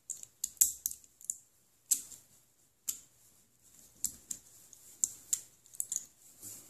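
Steel pliers clicking and scraping against a winch hook's metal retaining pin as it is bent into place: an irregular string of sharp metal clicks and ticks.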